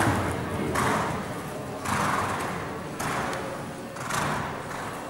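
Horse cantering on arena sand: soft, rhythmic hoofbeats with a scuffing whoosh, about one stride a second.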